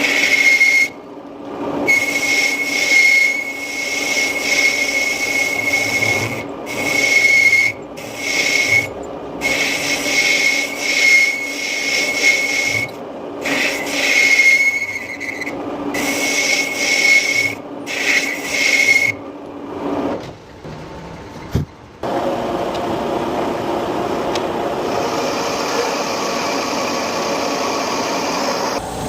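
Metal lathe cutting a cast iron part, the tool scraping with a steady high-pitched whine that stops abruptly several times. About two-thirds of the way in it goes quieter, then a steadier machine noise without the whine takes over.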